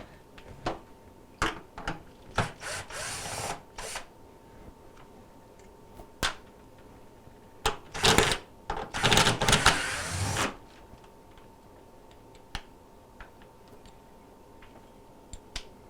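Power drill/driver running in several short bursts, the longest and loudest near the middle, loosening and tightening the screws of a refrigerator door's top hinge to adjust it, with clicks of handling between.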